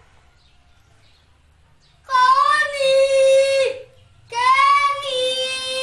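A young girl's voice holding two long, steady notes, each about a second and a half, after about two seconds of quiet.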